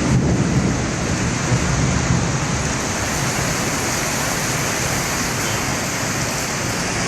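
Heavy rain pouring down in strong wind: a steady, dense rushing hiss, a little louder about the first second.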